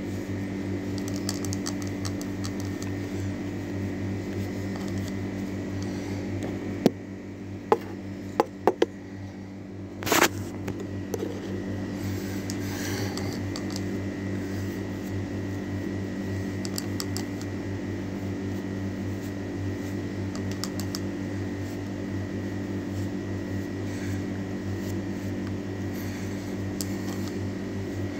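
Steady machine hum with a low drone and a faint high whine, broken near the middle by a few sharp clicks and one louder knock.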